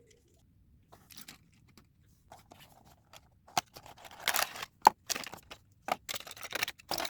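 Small die-cast toy trucks and their plastic packaging being handled: a run of light clicks, taps and scrapes, sparse at first and busier from about halfway, with one sharp click near the middle.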